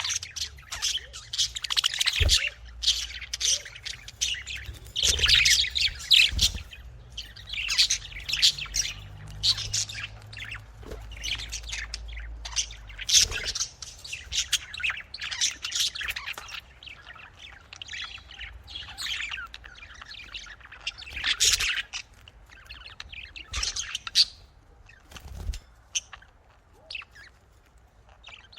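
Pet budgerigars chirping and chattering in quick, irregular runs of high-pitched calls, with occasional squawks.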